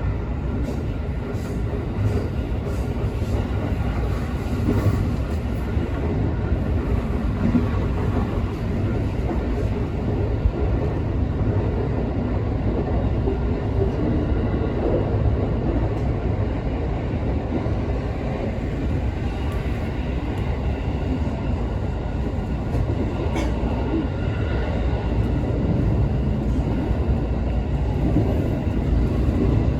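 Steady rumble of a JR West 221 series electric train running along the track, heard from the front of the train, with one brief sharp click about 23 seconds in.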